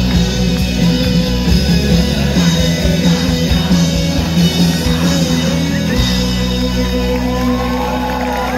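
Rock band playing live through a festival PA, electric guitars over bass and drums, heard from amid the crowd. About six seconds in the playing settles into a steady held chord.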